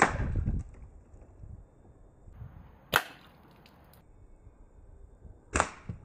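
Air rifle firing pellets: three sharp shots, roughly three seconds apart, the first the loudest.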